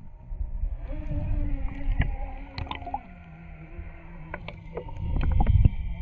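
Traxxas TRX4 RC crawler driving through a river, heard with the microphone under water: a muffled low churning of water, a steady hum from its brushless motor that drops in pitch about three seconds in, and scattered bubbly clicks and pops. The churning swells louder about a second before the end.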